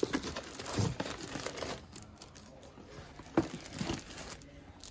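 Plastic bags and bubble wrap crinkling and rustling in a cardboard box as a parts bag is handled, in two spells with a few sharp crackles, the second starting a little past the middle.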